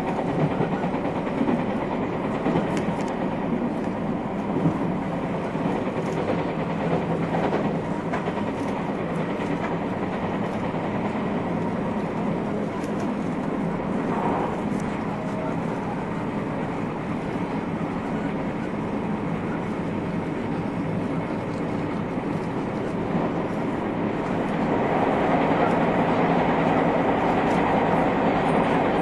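Running noise of a JR West 221 series electric multiple unit under way, heard inside its motor car KuMoHa 221-70: a steady rumble of wheels on rail and running gear. It grows louder near the end.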